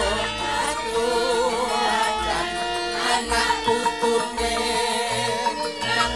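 Javanese gamelan ensemble playing a slow piece, with a female sinden singing a drawn-out, wavering vocal line over the held metallophone tones.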